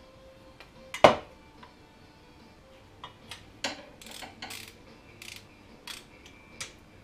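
Hand tools and metal parts clanking and clinking while an exhaust Y-pipe is fitted to a snowmobile engine. There is one sharp, loud clank about a second in, then a string of lighter clicks and short rattles from about three seconds in.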